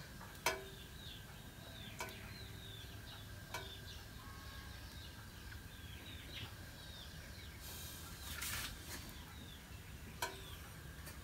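Faint small birds chirping repeatedly in the background over a steady low hum, with a few sharp clicks and a brief hiss about eight seconds in.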